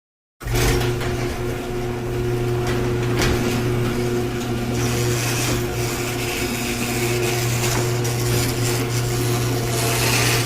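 A steady, loud, low hum with a hiss over it and a few fainter steady tones, setting in abruptly after a moment of dead silence.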